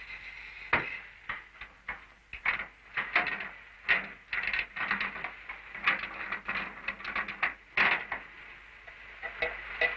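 Irregular sharp knocks and clicks, several a second, over the steady hiss of an old film soundtrack.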